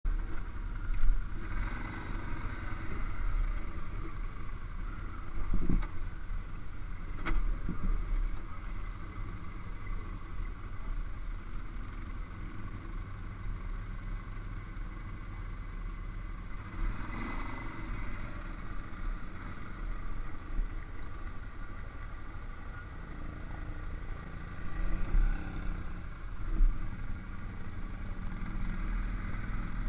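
ATV engines running: a steady low idle throughout, with louder swells now and then as a quad works through a muddy pond.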